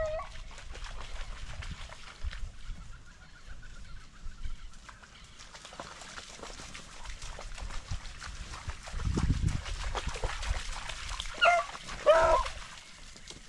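Hunting beagles giving voice on a rabbit chase: a faint distant yelping a couple of seconds in, then two short, loud bays close by near the end, over a steady crackle.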